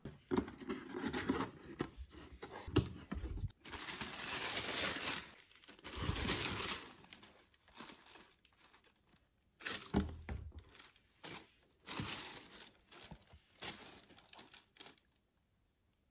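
Tissue paper inside a cardboard shoebox rustling and crinkling as it is handled, in uneven bursts with longer rustles about four and six seconds in. The handling dies down near the end.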